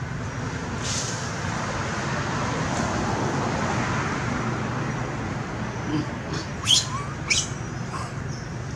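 Steady forest background hiss, with a few short high chirps: a faint one about a second in and two sharp ones about half a second apart near the end.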